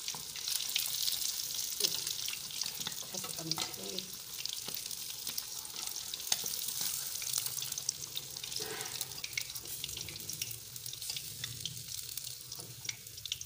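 Masala-coated fish pieces deep-frying in hot oil: a steady crackling sizzle, with a few sharp clicks along the way.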